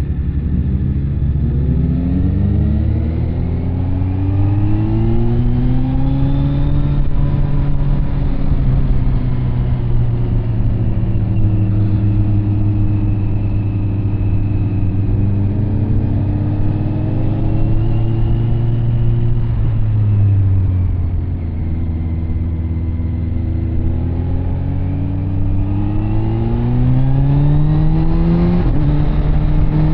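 Kawasaki Z900's inline-four engine through an SC Project CR-T carbon exhaust, heard while riding. It revs up through a couple of gear changes in the first several seconds, holds a steady cruise, eases off for a moment about two-thirds in, then pulls hard again with an upshift near the end.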